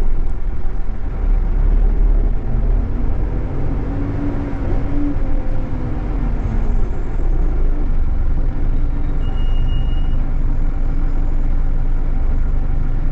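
Scania K420EB coach under way, heard from inside the passenger cabin: the steady low rumble of its rear-mounted engine and road noise, with the engine note wavering in pitch for a few seconds around the middle.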